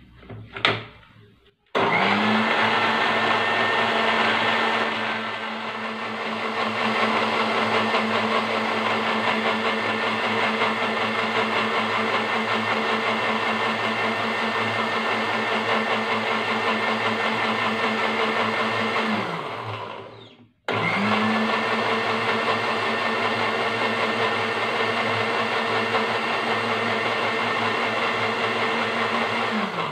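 Panasonic countertop blender grinding a watery spice paste, after a couple of knocks as the jar is set on its base. The motor starts about two seconds in and runs steadily, winds down after about eighteen seconds, then restarts almost at once and runs again until it winds down near the end.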